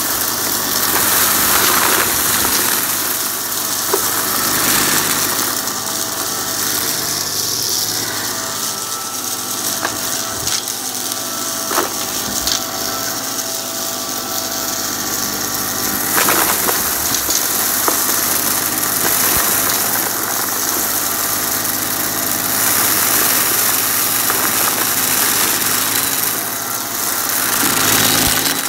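Upright vacuum cleaner running steadily with its motor whine as it is pushed over carpet, with scattered sharp clicks and rattles as pieces of debris are sucked up through the brushroll.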